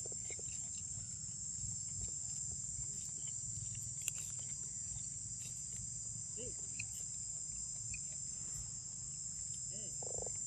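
Steady, high-pitched chorus of insects droning without a break, with a few faint short calls and a single sharp click about four seconds in.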